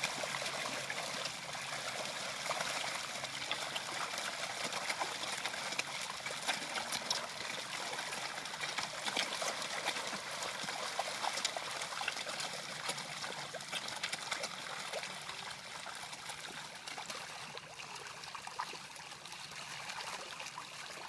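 Water trickling and splashing steadily, with many small crackling splashes.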